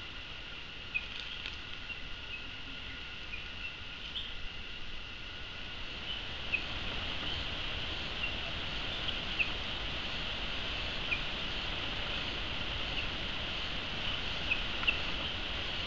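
Steady high insect buzzing with short high chirps every second or two, a little louder from about six seconds in.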